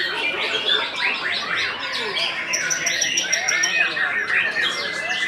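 White-rumped shama (murai batu) singing a fast, varied stream of whistles, chirps and harsh chatter, overlapping with other birds singing at once.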